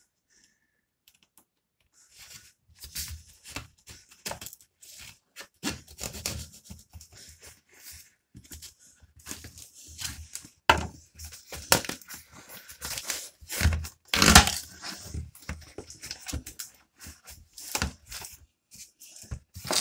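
Cardboard delivery box being cut open with a knife and torn apart: irregular scraping, ripping and rustling of cardboard and packing, starting about two seconds in, with the loudest rips around eleven and fourteen seconds in.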